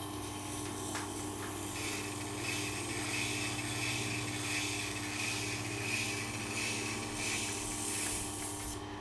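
Tormek sharpening machine running with a steady hum while the steel edge of a serrated knife grinds against the spinning wheel: a scraping grind starts about two seconds in and stops just before the end.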